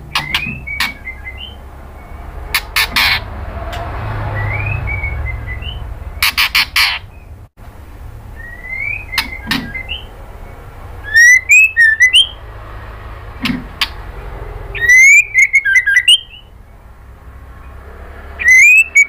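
White-rumped shama calling: bursts of harsh, rasping chatter mixed with quick rising whistled notes, coming every few seconds.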